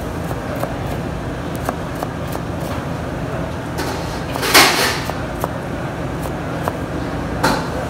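Chef's knife tapping lightly on a plastic cutting board as carrots are diced, then the blade scraping the diced carrot across the board, loudly about halfway through and briefly again near the end. A steady low hum runs underneath.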